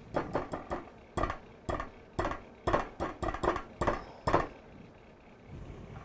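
Batter being spooned into muffin cups: a quick, uneven series of about fifteen clacks of a utensil against the mixing bowl and muffin tin, stopping a little over four seconds in.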